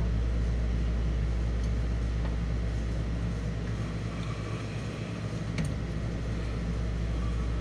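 A steady low hum that dips slightly for a moment about two-thirds of the way through, with one faint click just after.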